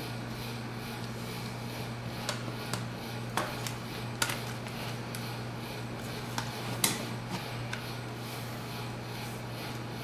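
Plastic back cover of a 7-inch tablet being pressed into place, its snap clips giving a string of sharp clicks from about two to eight seconds in, over a steady low hum.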